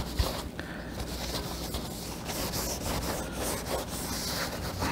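A rag rubbing back and forth over a painted motorcycle gas tank in repeated strokes, wiping the sanded surface down with mineral spirits to clean it.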